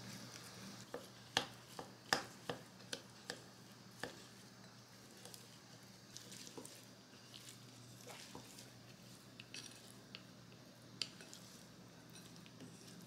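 Wooden chopsticks tossing shredded carrot with its dressing in a glass mixing bowl: quick clicks of wood against glass, about two a second for the first four seconds, then softer, sparser stirring.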